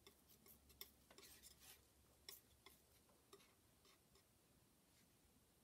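Near silence with faint, irregular light clicks and scrapes of a palette knife picking up and mixing oil paint on a palette. The clicks die away after about four seconds.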